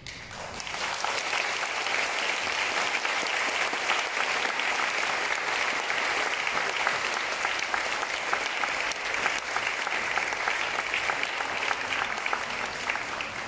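Audience applauding: many hands clapping, swelling within the first second and then holding steady.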